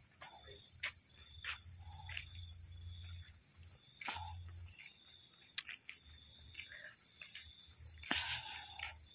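Night insects calling in a steady, high-pitched chorus, with a handful of soft clicks and taps scattered through it.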